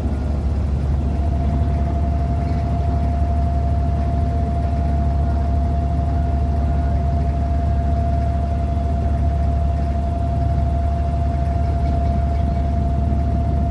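A wooden abra water taxi's diesel engine running steadily under way: a deep, even drone with a thin steady whine above it.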